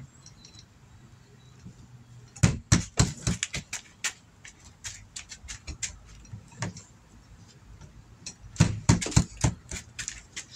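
A small stick knocking against an old steamer trunk. It comes in two quick flurries of sharp taps, about two and a half seconds in and again near nine seconds, with a few single taps between.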